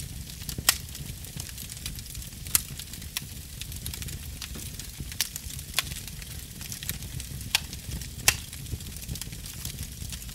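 Fire crackling and hissing over a low rumble, with a few sharp pops spread across it.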